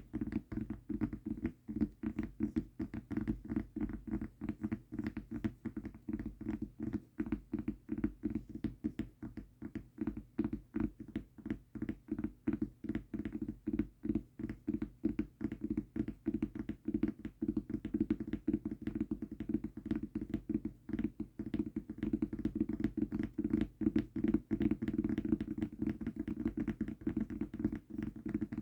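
Fingertips tapping rapidly and continuously on a mousepad, giving soft, dull taps several times a second.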